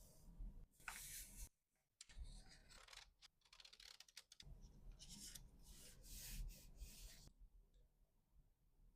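Faint rustling, scratching and clicking of packing materials being handled, in irregular bursts, stopping about seven seconds in.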